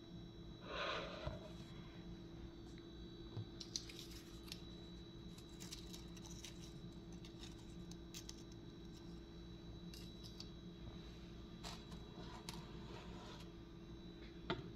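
Faint handling noises: scattered light clicks and rustles as the doll display is touched and the phone is moved. There is a brief louder scrape about a second in, over a steady low hum.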